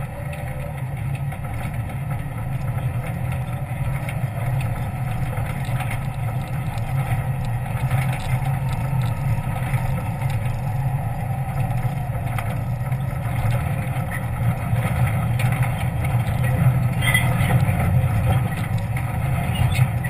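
Jeep engine running steadily at low speed while the vehicle crawls over a rocky trail, getting gradually louder as it climbs. A few knocks from the rocks come about three-quarters of the way through.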